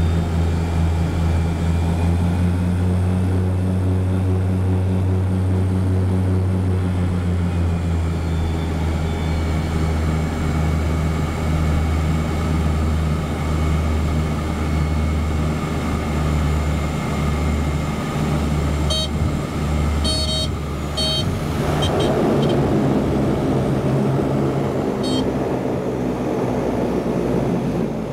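Seaplane propeller engine droning steadily, heard from inside the cabin. About two-thirds of the way through, a loud rush of water spray from the float rises over the engine as the plane speeds across the water.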